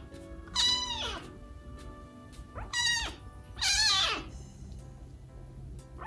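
Young kitten meowing three times, high calls that fall in pitch, the last two close together.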